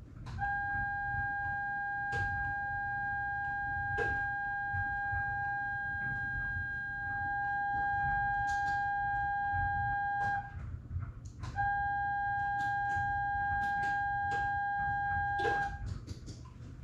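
A steady, unwavering pitched tone, like an electronic warning buzzer, held for about ten seconds. It breaks off for about a second, then sounds again for about four seconds, with a few soft clicks along the way.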